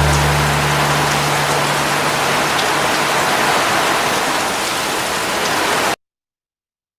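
Storm rain falling steadily, an even rushing hiss. Low music notes fade out in the first second, and the sound cuts off suddenly near the end.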